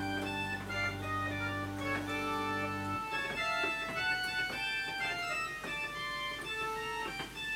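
Three-manual digital organ played in a slow improvisation: a sustained chord over a held bass note, which is released about three seconds in, leaving lighter, shorter notes moving in the upper range.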